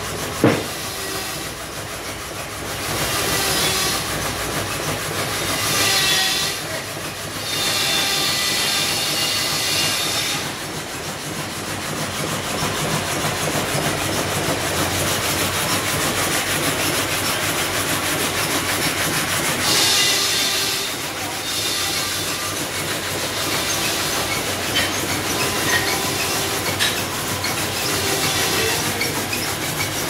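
Sawmill machinery running: a log carriage rattling on its rails and a big saw cutting logs, a steady clattering din. Several louder stretches of high-pitched whine come and go.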